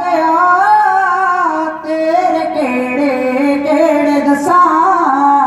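Punjabi religious singing amplified through a PA system: a slow, continuous melody with sustained notes that slide between pitches, with musical accompaniment.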